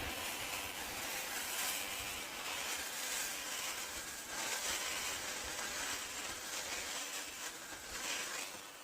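Reciprocating saw running steadily as it cuts through pallet wood, stopping near the end.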